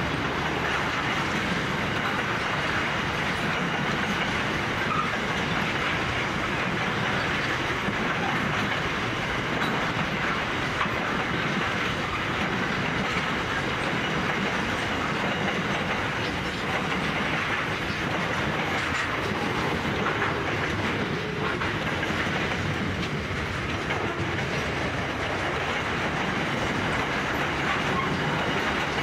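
Loaded container wagons of a long freight train rolling past. The wheels make a steady rolling noise on the rails, with occasional faint clicks.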